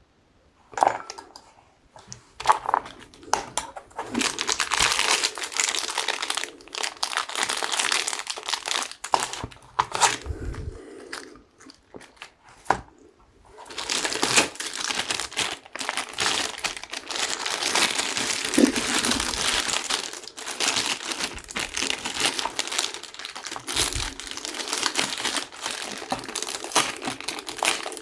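Packaging crinkling and rustling as it is handled and unwrapped, a dense run of small crackles and clicks with a short pause about halfway through.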